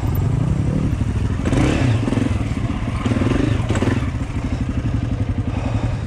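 Dirt bike engine running at low revs while the bike crawls over rocks, with a few knocks and clatter; in the second half it settles into an even, steady beat.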